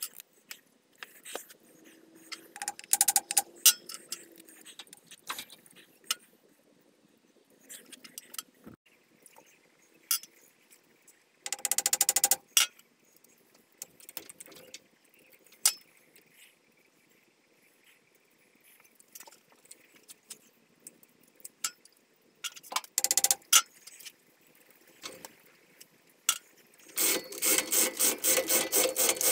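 Cordless impact driver hammering in short bursts: once about twelve seconds in, briefly again a little later, and for about two seconds near the end. Between the bursts, metal parts and tools clink and clatter as they are handled.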